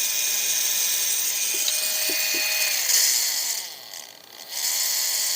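Small electric motor of a Carisma SCA-1E RC crawler, freshly oiled, running on a bench power supply with a steady whine. About three seconds in its pitch falls and it almost stops as the supply voltage is turned down, then it spins up again at the lower voltage.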